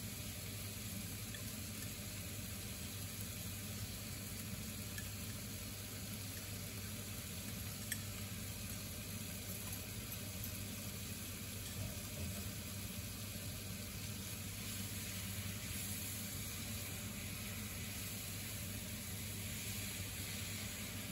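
Chicken pieces and spices sizzling steadily as they fry in a hot non-stick frying pan, over a low steady hum. A single sharp click about eight seconds in.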